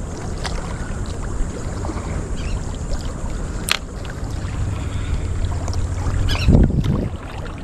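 Wind buffeting the microphone in a low rumble, with waves washing against the jetty rocks. There is a single sharp click about halfway through and a louder surge near the end.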